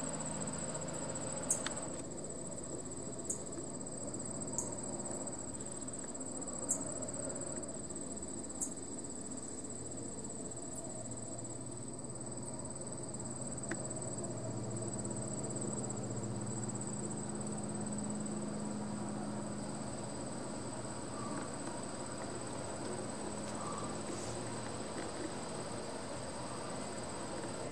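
Steady high-pitched insect trill, with a low engine-like hum that swells in the middle and a few light clicks in the first ten seconds.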